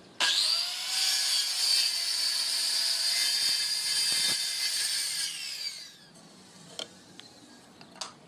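Handheld circular saw starting suddenly and cutting along a thick wooden door-frame timber, running a rebate for about five seconds. It is then switched off and its motor whines down to a stop about six seconds in, followed by a couple of faint knocks.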